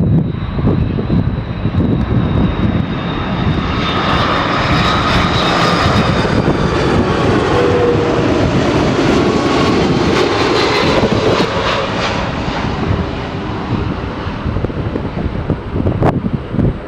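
Airbus A330 twin-engine jet on landing approach, its engine whine and rumble swelling as it passes close by and then fading, the high whine dropping slightly in pitch as it goes. Gusty wind buffets the microphone near the start and end.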